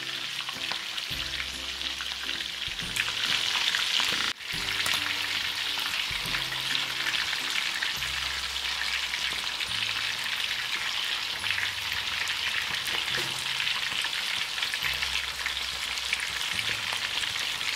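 Whole marinated chicken frying in hot oil in a steel karahi on a low flame: a steady sizzle of bubbling oil, with soft background music underneath and a brief drop-out about four seconds in.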